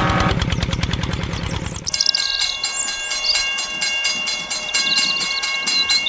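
A fast, low engine putter for the first two seconds, then a sudden change to a toy steam train running on its track. The train gives fast even chuffing clicks, steady electronic tones and high whistle-like sounds, and the putter returns right at the end.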